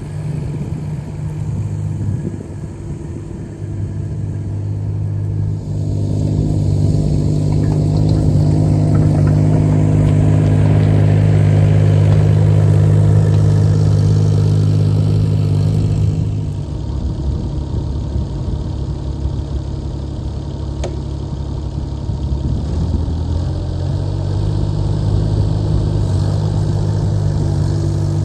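Yanmar diesel engine of a Carter CT12BU mini excavator running as the machine digs, its note rising under hydraulic load about six seconds in, easing back around sixteen seconds, then rising again near the end.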